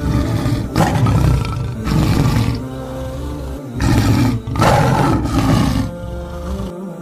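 Leopard growling in four harsh, rasping bursts, over steady background music.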